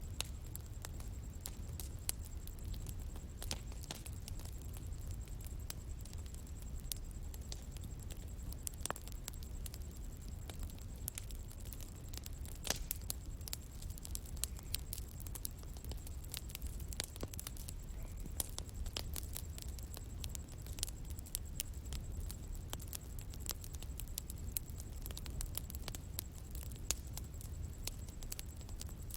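Bonfire crackling, with irregular sharp pops and snaps over a steady low rumble of the burning fire.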